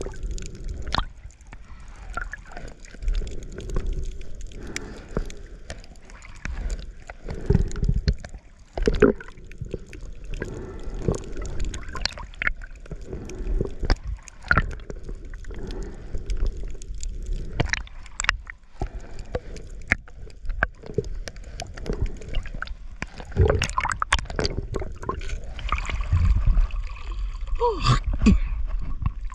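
Water gurgling and sloshing around a camera moving underwater and at the surface, with many irregular clicks and knocks.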